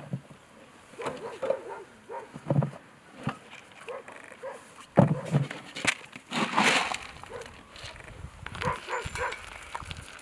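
Stray dogs whimpering and yipping around a feeding station while food is handled, with scattered knocks and a brief rustle about two-thirds through. Near the end a quick run of short whines, about three or four a second.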